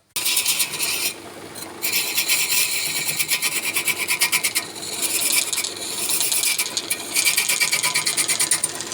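A tool held against wood spinning on a lathe: a rapid, pulsing rasping scrape. It starts abruptly, eases off briefly about a second in, then carries on.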